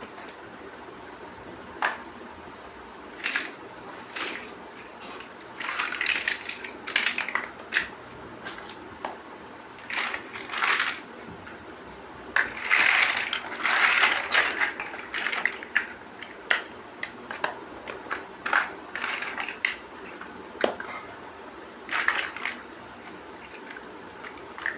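Plastic building bricks being handled and pressed together: irregular sharp clicks and short rattling clusters, busiest about halfway through.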